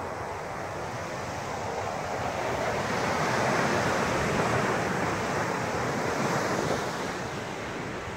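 Ocean surf breaking and washing up the beach, swelling a couple of seconds in and easing off near the end, with wind on the microphone.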